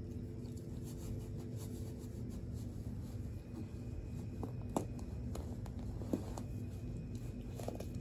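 A dog chewing and tearing at a stuffed fabric soccer-ball toy: soft rustling broken by scattered sharp little clicks.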